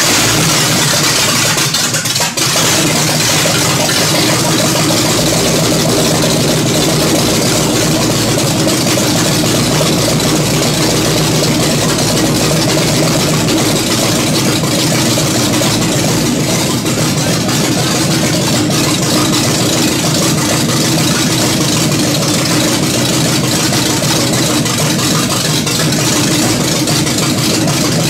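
Ford F100 pickup's carbureted V8 engine running at a steady idle, even and unrevved.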